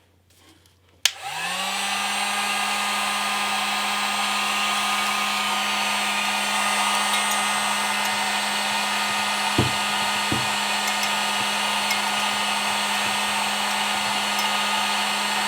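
Heat gun switched on with a click about a second in, its fan motor spinning up to a steady whir with a hum, run on the low setting to shrink a shrink-wrap seal band onto a maple syrup bottle. Two light knocks midway.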